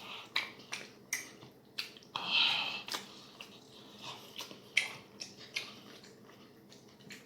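A person chewing and smacking food close to the microphone: a string of short, sharp wet mouth clicks, with one louder, longer wet sound about two seconds in.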